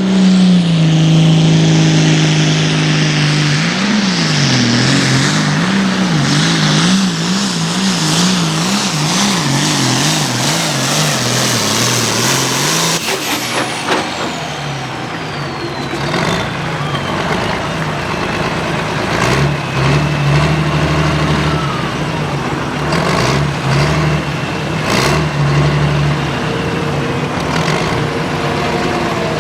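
Turbocharged diesel pulling tractor at full throttle, its engine speed surging rapidly up and down for about ten seconds, then backing off about 13 seconds in as a high turbo whistle winds slowly down. Later the engine is blipped in several short revs.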